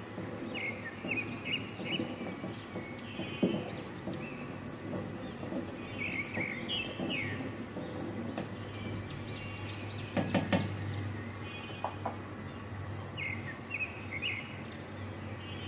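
Wooden spoon stirring and scraping milk and rice in an aluminium pot, with a few knocks of the spoon against the pot, the loudest about three and a half and ten seconds in. Small birds chirp in short bursts three times over it, above a steady low hum.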